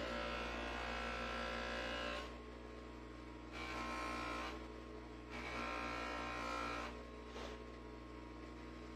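Ryobi bench grinder running with a steady motor hum while a steel Bowie knife blade is pressed against its spinning wheel. The grinding gets louder and rougher in several separate passes and eases back to the motor hum between them.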